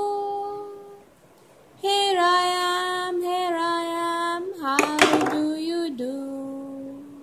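A high voice singing a slow children's colour song in long held notes, fading out and starting again about two seconds in. A brief clatter of hard plastic shape pieces knocking together comes about five seconds in.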